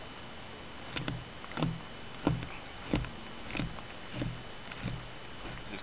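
Draw knife's flat edge pushed down a raw deer hide on a fleshing beam, scraping off fat, meat and membrane. Short scraping strokes, about one every two-thirds of a second.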